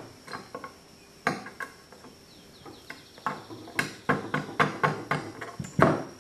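Rawhide-faced mallet tapping a steel punch to drift out the breech-block pin of an 1873 Springfield trapdoor rifle: a dozen or so light, irregularly spaced taps, the pin moving a little at a time against the ejector spring's pressure.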